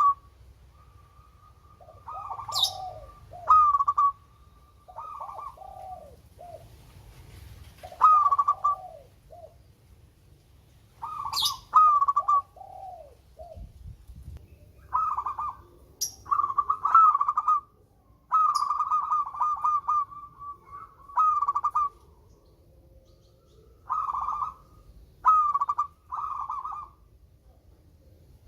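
Zebra dove (perkutut) cooing in short rolling phrases of quick notes, repeated every second or two, with a longer run of phrases about two-thirds of the way in.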